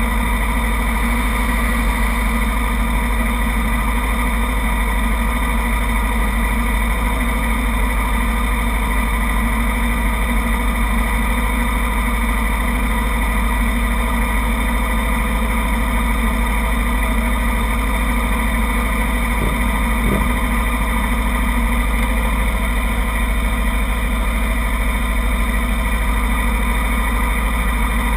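250-class sport motorcycle engines, the Kawasaki Ninja 250 class, idling steadily with no revving. Two faint clicks come about two-thirds of the way through.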